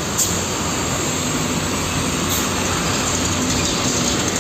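Steady mechanical running noise of a vehicle, even in level throughout.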